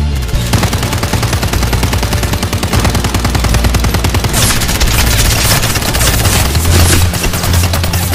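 Rapid machine-gun fire sound effects in long bursts over background music with a steady bass line, with a louder run of shots about halfway through.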